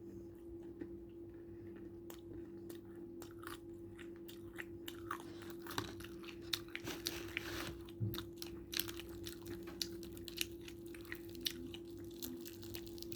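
Close-up eating sounds of fried chicken: irregular bites, crunches and wet chewing clicks. A steady low hum runs underneath.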